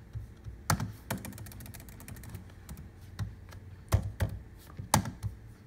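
Typing on a laptop keyboard: a quick, irregular run of key clicks, with a few harder key strikes among them.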